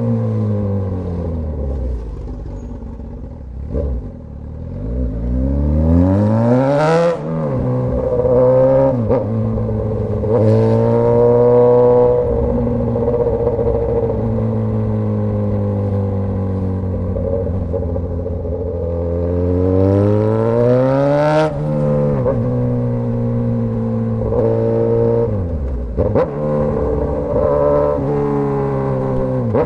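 Straight-piped Suzuki GSX-S1000 inline-four motorcycle exhaust under way. The revs fall, then climb hard about five to seven seconds in and hold fairly steady. Near twenty seconds they climb again and cut off sharply, with a brief dip again later.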